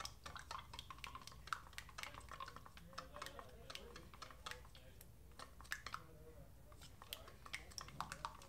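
A stick stirring thin acrylic paint in a small plastic cup, tapping and scraping against the cup's sides in a faint, irregular run of small clicks that thins out briefly past the middle.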